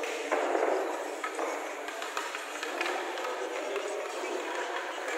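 Indistinct background chatter and room noise in a pool hall, with a few sharp clicks.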